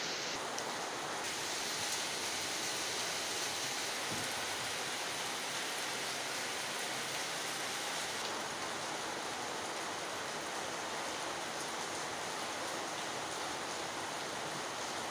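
Steady rain falling, an even hiss with no other distinct sounds.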